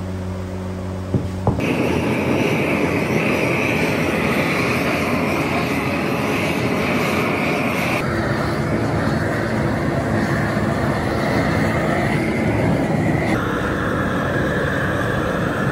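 Steady loud roar of foundry workshop noise, without rhythm, which shifts abruptly in tone about a second and a half, eight and thirteen seconds in.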